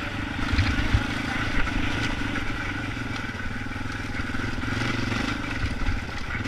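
Yamaha Raptor 250 quad's single-cylinder four-stroke engine running at a fairly steady speed, with a few short low thumps in the first two seconds and another near the end.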